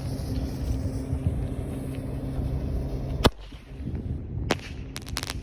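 Nighttime parachute firework: a steady rushing hiss, then about three seconds in a single sharp bang as it fires. A fainter crack follows a second later, and a few quick sharp clicks come near the end.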